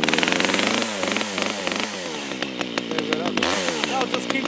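Small two-stroke top-handle chainsaw engine running cold with the choke partly out, its speed wavering up and down unevenly because it is not warmed up enough yet.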